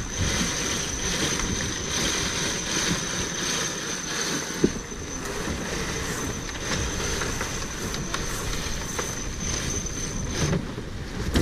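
Water rushing along the hull of a J/111 racing sailboat under way, with wind buffeting the microphone. A few scattered sharp clicks and a steady thin high whine sit over the rush.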